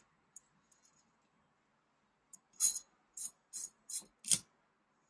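Five short, jingling metallic clinks in quick succession in the second half, as of small metal parts handled on the crimping machine.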